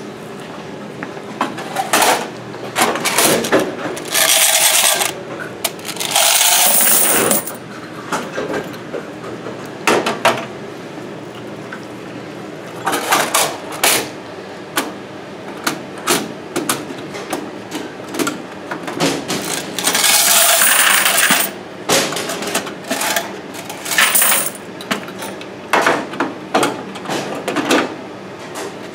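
Quarters pouring from washer coin boxes into a plastic bucket in several rushes, each about a second or more long. Sharp metallic clicks and clatter fall in between.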